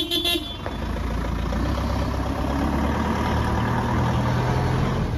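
A truck's engine running steadily at low revs.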